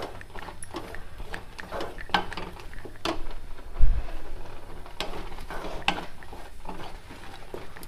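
Spatula stirring and scraping a thick coconut milk and cream mixture around a non-stick kadai, in irregular scrapes and light taps. A low thump comes about four seconds in.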